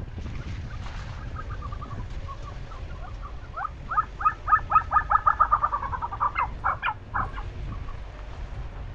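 Tibetan snowcock calling: a few faint notes, then from about three and a half seconds in a loud, rapid run of short notes that slows and falls slightly in pitch, ending with a few spaced notes.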